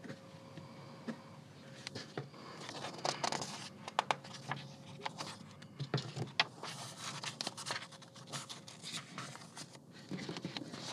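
A pencil marking book pages through the slots of a ruler, with paper rustling and scraping and many small clicks and taps as the ruler and pages are handled. The clicks come thickest in the middle stretch.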